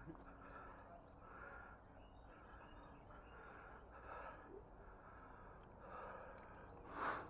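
A person breathing hard and out of breath, a faint breath roughly every half second, with a louder breath near the end.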